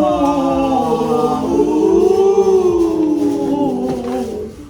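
Music of several voices singing a long held, slowly shifting chord, like a choir, fading out near the end.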